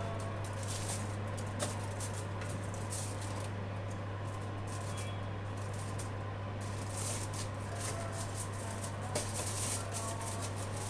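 Aluminium foil crinkling, with light taps and clicks as marinated prawns are handled and laid onto a foil-lined grill tray, over a steady low hum.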